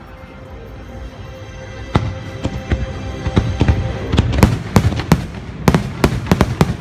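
Fireworks shells bursting over held notes of the show music. A few separate bangs come about two seconds in, then a rapid string of cracks and booms from about four seconds in as the finale volley builds.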